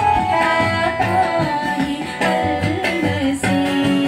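A woman singing a song live into a microphone, accompanied by a strummed acoustic guitar and a keyboard.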